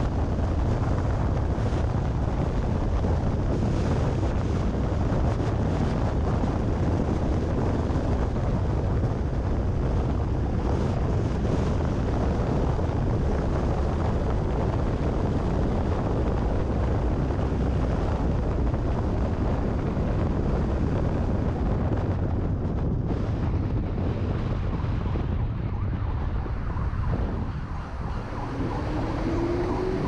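Wind blowing hard on the microphone of a car-mounted camera, with road and tyre noise from a car at highway speed. The noise eases near the end as the car slows to a crawl, and a faint rising whine sounds in the last couple of seconds.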